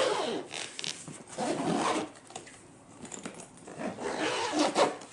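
Zipper of a hardshell drone backpack being pulled closed in three rasping pulls.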